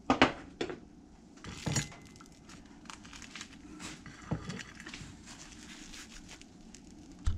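Scattered light clicks and taps of a sandwich being handled on a ceramic plate as the toasted English muffin top is set on and the sandwich is pressed and picked up by hand. The taps are sharpest in the first couple of seconds, with another just before the end.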